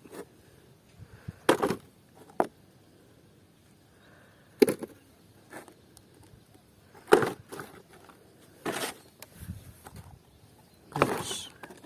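Muddy plastic toys being handled and set down: about six separate knocks and clatters, spaced a second or more apart.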